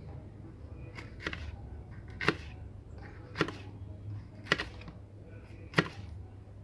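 Kitchen knife slicing bell pepper on a plate, with a sharp tap each time the blade meets the plate, about once a second.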